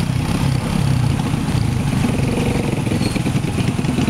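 Small motorcycles and a car driving slowly past, their engines running steadily.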